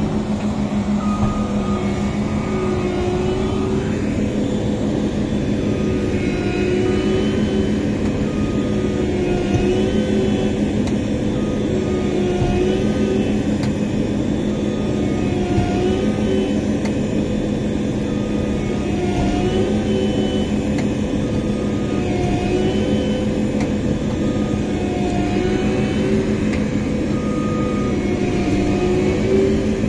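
Massey Ferguson CS6050 combine harvester running steadily under load, its engine and threshing machinery making a constant drone, with a faint squeaking tone that comes back about every three seconds.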